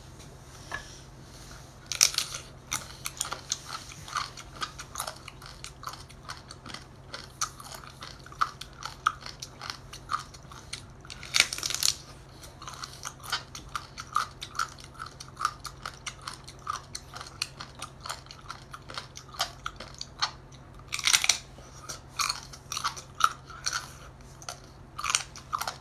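Close-miked chewing and biting of boiled seafood: dense, irregular wet mouth clicks and smacks, with three louder crunching or slurping noises near the start, midway and near the end, over a steady low hum.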